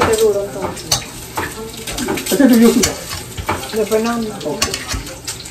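Food sizzling as it fries in a pan on a gas stove, with sharp clinks of a metal ladle against the pan. Brief voices sound over it, loudest about two and a half seconds in and again near four seconds.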